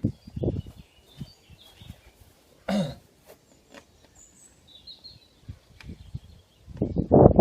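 Knocks and rubbing from a bicycle's drive-side bottom bracket cup being handled, with one short noisy burst about three seconds in and a busy run of clattering near the end. Birds chirp faintly in the background.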